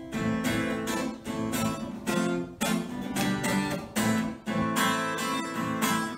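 Instrumental intro of a gospel song: acoustic guitar strummed in a quick, steady rhythm, before the vocals come in.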